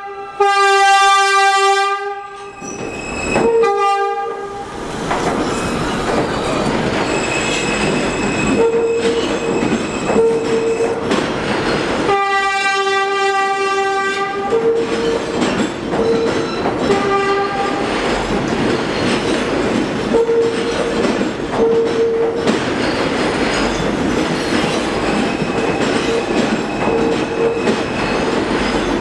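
New York City subway train horn sounding two long blasts about ten seconds apart, each followed a couple of seconds later by a short toot. Under and after them a subway train runs through the tunnel, wheels clattering, with a wheel squeal that keeps coming and going.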